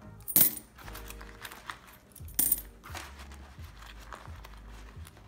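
Loose coins dropped by hand into a glass jar already full of coins: two loud clinks about two seconds apart, with smaller clicks and jingles of coins being picked out of a wallet between them.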